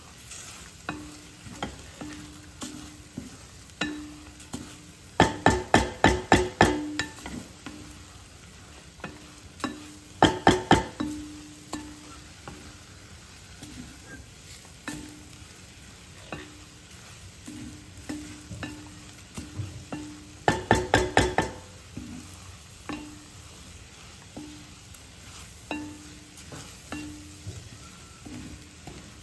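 Spatula stirring and scraping spiced scrambled eggs (egg bhurji) frying in a steel pan, with a low sizzle. Three bursts of rapid knocks of the spatula against the pan come about five, ten and twenty-one seconds in, and these are the loudest sounds.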